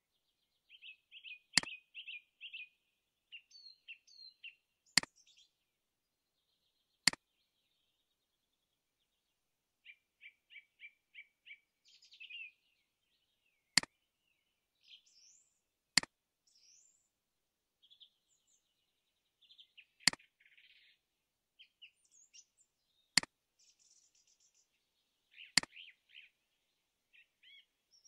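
Small birds chirping and trilling in quick high phrases, broken every two to four seconds by a sharp, loud click.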